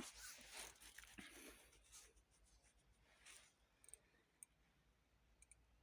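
Near silence, with faint rustling in the first two seconds and a few faint, brief clicks in the second half.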